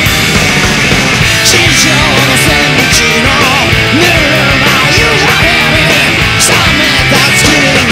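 Garage-punk rock band playing: electric guitar, bass and drums, with guitar notes sliding in pitch and cymbal crashes.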